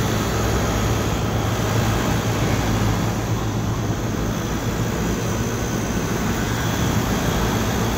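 Package air-conditioning unit's compressor running steadily with a constant low hum over an even rushing noise, now pumping normally after two supply leads were swapped back to correct its direction of rotation.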